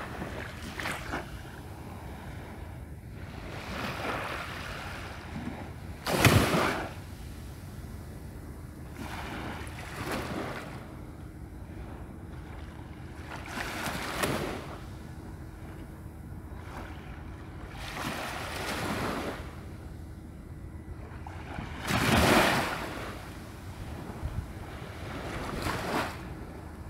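Small waves washing in at the water's edge, a surge every four seconds or so, the loudest about six seconds in and again about twenty-two seconds in.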